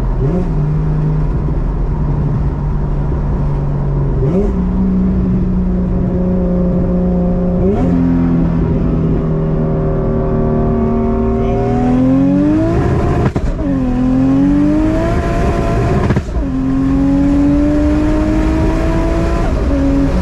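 1.5JZ-swapped turbocharged inline-six in a BMW E46 M3, heard from inside the cabin. It holds a steady cruising note for about nine seconds, then pulls harder with a rising engine note that drops sharply at gear changes about thirteen and sixteen seconds in and climbs again until it eases off near the end.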